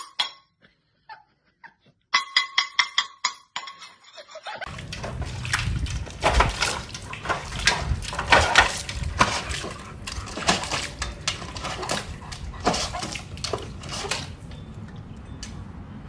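A large dog splashing its front paws in a steel water bowl: irregular splashes and sloshes over a steady hiss, starting about four and a half seconds in. Before that comes a quick run of sharp rhythmic ticks.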